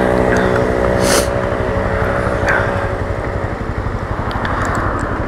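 Motorcycle engine running while riding, with wind and road noise; its steady engine note fades into the road noise about three and a half seconds in.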